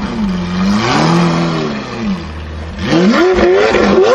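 Lamborghini Aventador's V12 revving: one rev rises and falls about a second in, the engine drops back for a moment, then the revs climb steeply and louder near the end as the car accelerates away.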